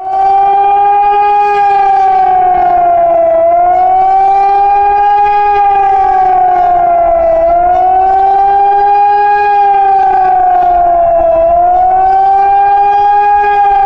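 Hörmann ECN electronic emergency siren sounding its warning (attack) tone, a loud wail that rises and falls in pitch about once every four seconds.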